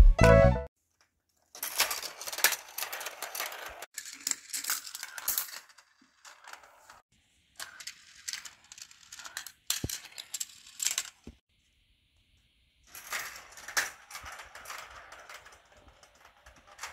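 Metal marbles running through a Gravitrax marble run, rolling and rattling along plastic track pieces and metal rails with sharp clicks and clacks, in several runs with short silences between them. Intro music cuts off within the first second.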